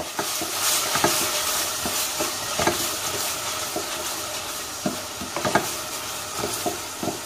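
Diced onions and carrots sizzling in hot oil in a stainless steel pot while being stirred with a wooden spoon, with irregular knocks and scrapes of the spoon against the pot. The vegetables are being sautéed hard.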